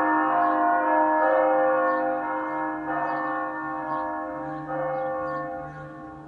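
Church bells ringing, several bells struck in turn and ringing on together, fading toward the end.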